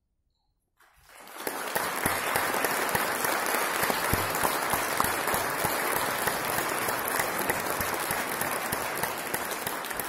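About a second of silence, then audience applause that swells quickly and holds steady.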